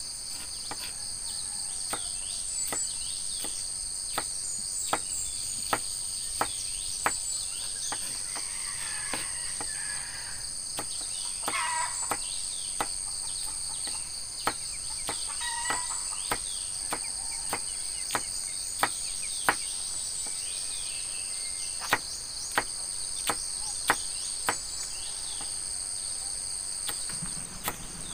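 Knife chopping chili peppers on a wooden log chopping block: sharp, irregular taps about once a second. Under them runs a steady, high insect chorus of crickets, with a few bird chirps in the middle.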